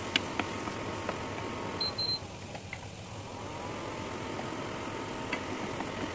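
Onion paste frying in a nonstick wok while a wooden spatula stirs and scrapes it, with scattered light taps of the spatula on the pan. Under it runs a steady hum. A short high double beep sounds about two seconds in, and the hum drops out for a moment before gliding back.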